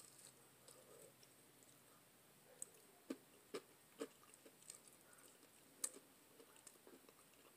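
Near silence with faint eating sounds: a handful of soft clicks and ticks from chewing and picking at fried catfish, scattered through the middle.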